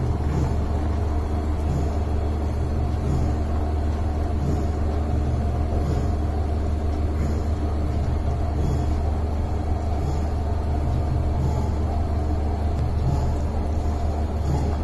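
A steady low mechanical hum from a running motor, unchanging throughout, with a few steady tones over a deep drone.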